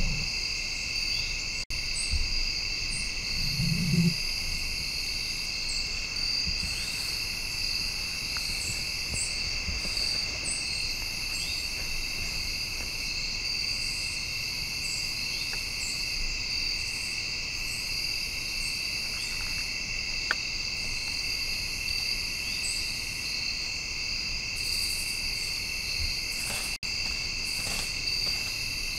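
Steady evening chorus of crickets and other insects, a continuous high trilling in two pitch bands. A single low thump comes about four seconds in.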